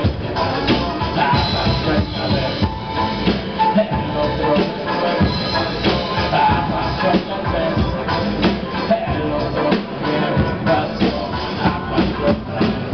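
Live band music with a drum kit, played loud through the PA.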